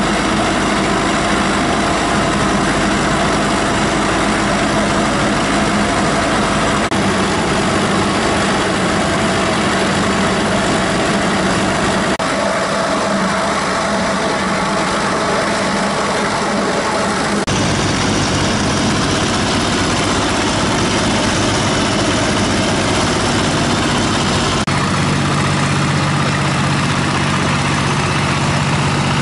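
Diesel engines of road-paving machinery running steadily: a heavy engine hum with several steady tones. The sound changes abruptly four times.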